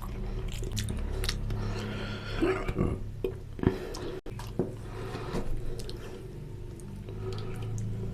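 Close-miked chewing with wet, squishy mouth clicks and lip smacks from eating soft mutton lung and intestine curry with puri. There is a brief cut in the sound about four seconds in.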